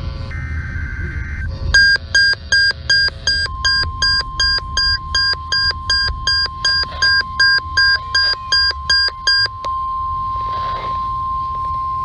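The last burst of a NOAA Weather Radio SAME data header, a harsh two-pitch electronic buzz. Then a handheld weather radio's own alarm starts beeping about three times a second, and a few seconds in the steady 1050 Hz NOAA warning alarm tone joins it. The beeping stops near the end while the steady tone carries on; this is a required weekly test of the alert system.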